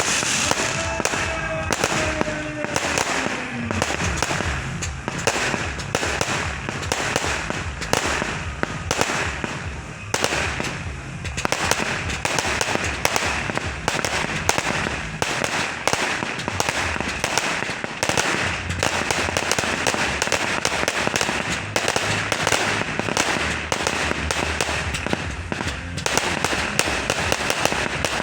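Fireworks going off in a dense, continuous barrage of rapid bangs and crackles. A few falling whistles sound in the first three seconds.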